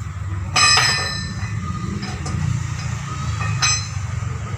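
Two sharp metallic clinks about three seconds apart, the first loud and ringing briefly, like a metal tool or part striking metal, over a steady low rumble.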